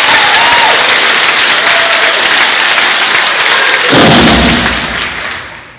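Audience applause, a dense patter of many hands clapping with a few shouts, dying away near the end. A low thump comes about four seconds in.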